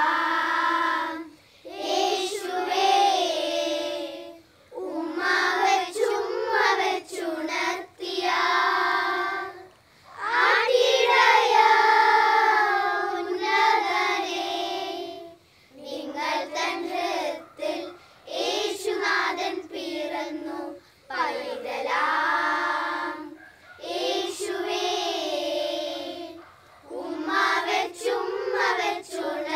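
Group of children singing a Christmas carol together, unaccompanied, in phrases of a few seconds with short breaks for breath between them.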